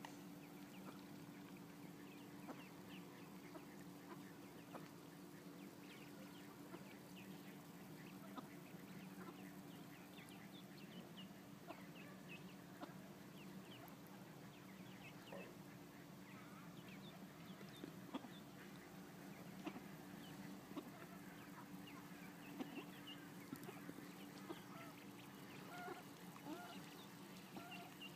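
Mallard ducklings peeping faintly: many short, high peeps scattered throughout, coming more often in the second half, over a steady low hum.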